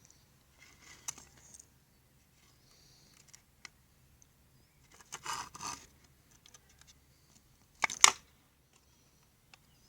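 Small tools scraping and clicking against the plastic and parts inside a Bluetooth speaker while prying at its stuck Bluetooth module, with a longer scrape about five seconds in and a sharp click, the loudest sound, about eight seconds in.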